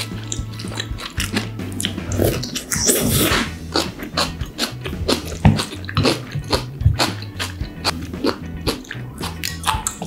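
A person slurping and chewing spicy kimchi noodles, with many short wet mouth clicks and a longer slurp about three seconds in, over background music.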